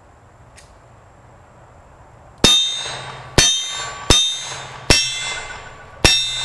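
Five shots from a Colt Trooper .357 Magnum revolver, beginning about two and a half seconds in and coming roughly one a second. Each crack is followed by a metallic ringing that dies away slowly, the ring of a struck steel target.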